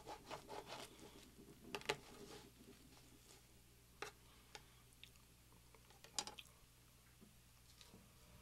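Quiet sounds of a metal knife and fork cutting through French toast, with a handful of sharp clicks of the utensils, the loudest about two seconds in and about six seconds in.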